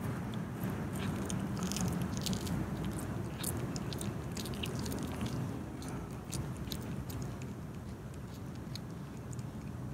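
Domestic cat chewing and crunching on a dead rat: a run of short sharp crunching clicks, thick in the first six seconds and thinning out after.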